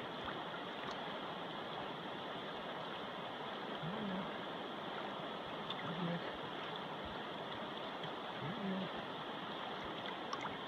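Steady rushing of shallow river water flowing around the wader's legs, with three brief faint low hums partway through.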